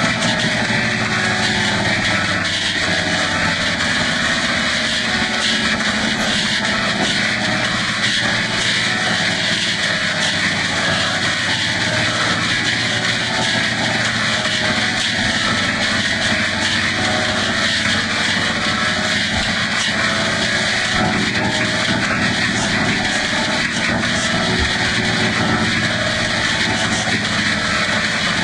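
A cartoon theme song so heavily distorted by audio effects that it comes out as a loud, steady, noisy drone with no clear tune.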